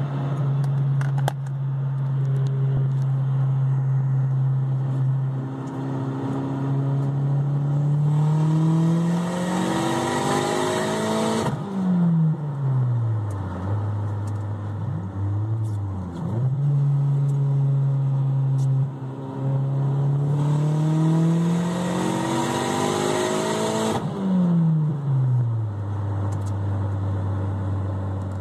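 Turbocharged Mazdaspeed 6 four-cylinder heard from inside the cabin, running steadily, then twice pulling hard with the engine note rising and a rushing noise building over it. Each pull stops abruptly and the revs fall back. These are test pulls after the injector seals were refitted, and they ran without knock.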